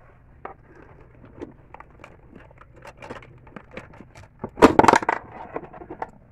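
Hands handling small craft supplies on a tabletop: scattered light clicks and taps, then a louder crinkling rustle about four and a half seconds in, lasting under a second.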